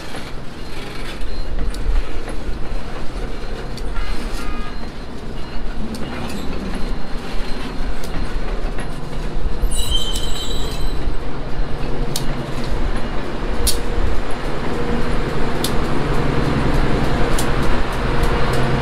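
Subway continuous welded rail work train on the move: a steady low rumble with a hum that grows stronger from about halfway, a brief high metallic squeal about ten seconds in, and sharp metal clanks in the second half.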